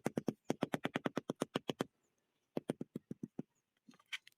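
Rapid tapping on freshly laid wall tiles, about eight quick sharp knocks a second, a short pause, then a second shorter run: a check for hollow spots behind the tiles, which sound solid.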